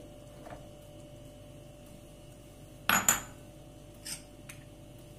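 Kitchenware clinking: one sharp knock with a brief ring about three seconds in, then two lighter taps about a second later, as dishes and utensils are handled on the counter.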